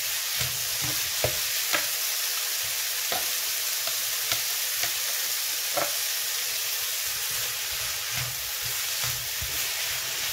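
Chopped goat meat, onion and pepper mix sizzling in oil in a frying pan, with a spoon stirring and knocking against the pan now and then. The hiss stays steady throughout.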